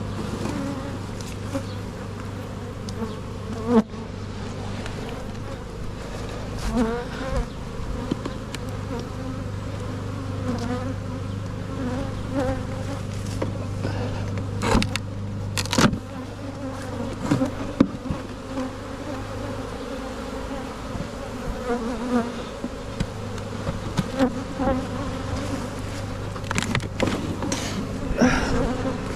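Honeybees buzzing in large numbers around an opened hive, a steady drone, with a few sharp knocks now and then.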